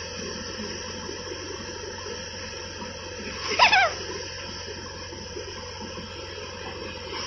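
Paddy thresher running steadily, a constant whirring hiss from the threshing drum and the straw being blown through. A little past halfway a brief, loud, wavering cry falling in pitch rises over it.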